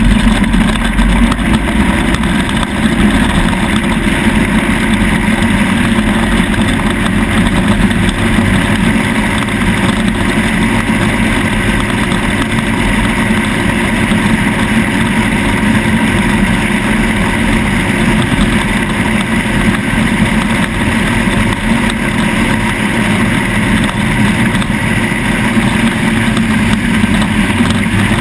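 ATV engine running at a steady speed while riding, with rushing noise on the vehicle-mounted camera.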